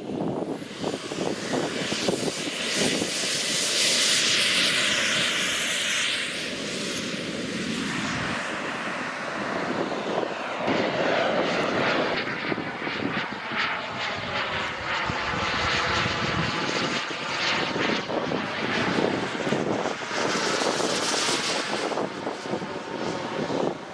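Elite Aerosports Havoc SS model turbine jet flying passes: a high turbine whine with a jet rush that swells about four seconds in and again near the end, and a sweep in pitch in the middle as it goes by.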